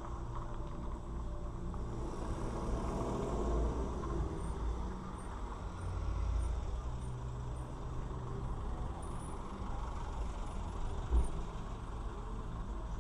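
Low, steady rumble of car engine and traffic noise picked up by a dashcam inside a car, with one short thump about eleven seconds in.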